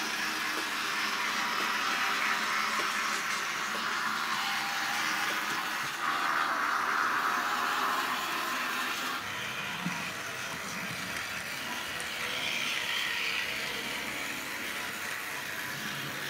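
00-scale model tram running along its track, driven by a small electric motor unit: a steady running noise that swells and fades, and changes about nine seconds in.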